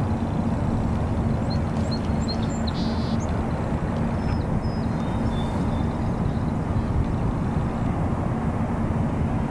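Steady low rumble with a constant hum, and a few faint, short, high bird chirps between about two and six seconds in.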